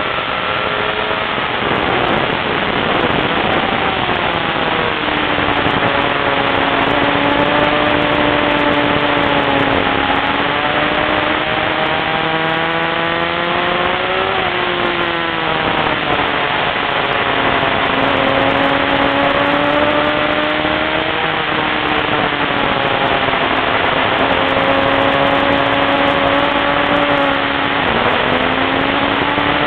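Car engine heard from inside the cabin while driving hard on a race track. Its pitch climbs and drops several times with acceleration, shifts and braking, over loud wind and road noise.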